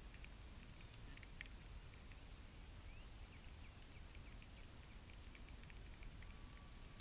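Faint, scattered bird chirps over a low outdoor rumble, close to silence. A thin, steady high tone comes in about six seconds in.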